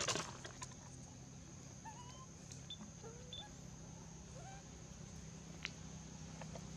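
Faint forest ambience: a steady high insect drone with scattered short, rising animal calls, and a sharp click near the start and another late on.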